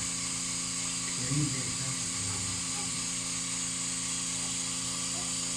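Steady electrical hum with a high hiss from hospital equipment, with a faint short sound about a second and a half in.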